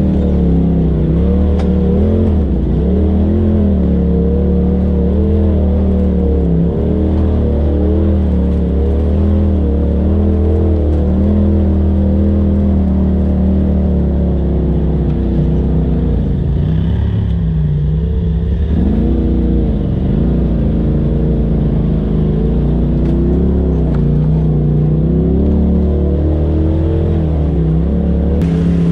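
Polaris RZR side-by-side's engine running at crawling trail speed, its pitch rising and falling as the throttle is worked. It eases off for a few seconds a little past halfway, then picks up again.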